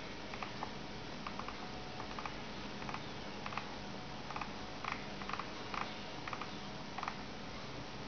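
A common myna pecking and rummaging with its beak on a desk, making irregular light taps and clicks that come more often past the middle, over a steady hiss.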